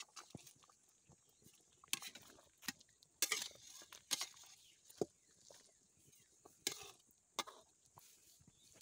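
Metal spatula knocking and scraping against a steel kadhai as taro-leaf rolls are turned in it: a handful of separate clinks and scrapes, spaced irregularly.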